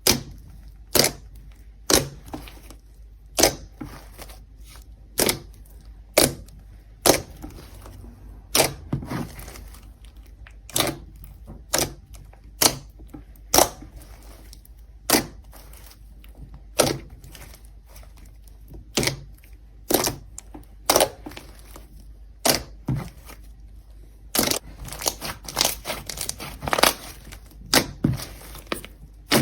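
Slime being worked by hand, making sharp popping clicks about once a second, with a quicker run of pops near the end.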